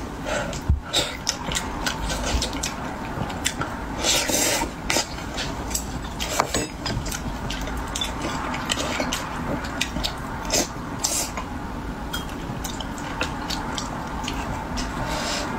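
Close-up eating sounds: wet chewing and slurping, with scattered sharp clicks of chopsticks against a ceramic bowl and plate.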